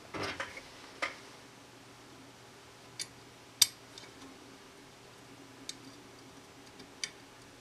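About six sharp, scattered metallic clicks and taps from fitting the ejector into the steel receiver of a 1953 Savage/Stevens 820B pump-action shotgun. The loudest click comes about halfway through, over a faint steady hum.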